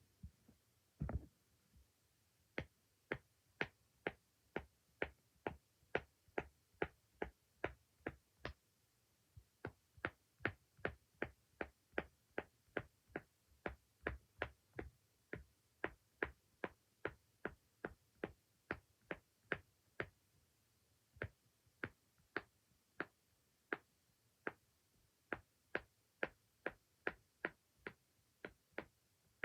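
Silicone pop-it fidget toy bubbles being pressed one after another: sharp little pops, about two a second, with a few short pauses.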